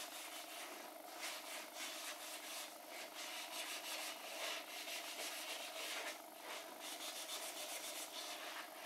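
Sandpaper rubbed by hand over the edge of a handle cutout in a pallet-wood tray, in quick back-and-forth strokes with a brief pause about six seconds in.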